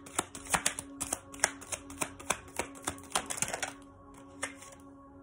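Tarot deck being shuffled by hand: quick, irregular card slaps and flicks that stop about three and a half seconds in. Soft background music with a steady tone plays throughout.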